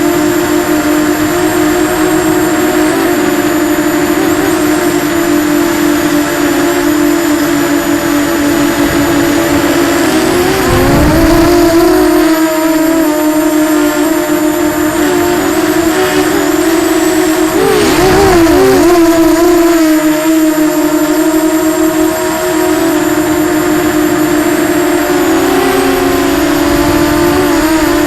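Eachine Falcon 250 quadcopter's brushless motors and propellers whining at a steady pitch in flight, the pitch wavering briefly with throttle changes about ten seconds in, again near the middle, and once more near the end.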